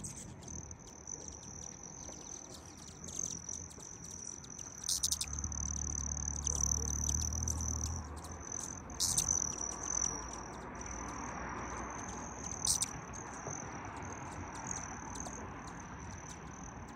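Hummingbirds: a high, thin, steady trill with many short sharp chips over it, and three louder chips about five, nine and twelve and a half seconds in. A low rumble runs from about five to eight seconds in.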